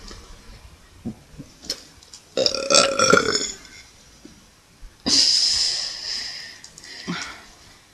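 A person belching deliberately: one short voiced burp about two and a half seconds in, then a longer breathy, airy sound about five seconds in.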